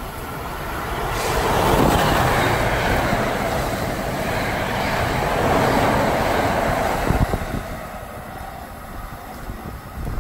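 Passenger train passing through the station at speed: a rush of wheel and air noise swells about a second in, holds for several seconds with a few clicks from the wheels over the rails, and fades after about seven seconds.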